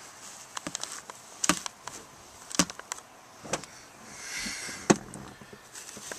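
Scattered clicks and light knocks from a handheld camera being handled and repositioned inside a car, with a soft rush of noise about four seconds in.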